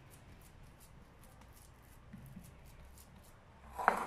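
Faint soft handling sounds of ground-pork mixture being pressed flat into a patty by hand, then one sharp knock against the glass mixing bowl near the end.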